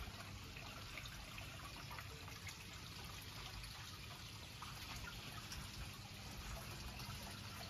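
Water trickling and dripping into a garden koi pond, a faint steady splashing flecked with small drips. A brief knock sounds right at the start.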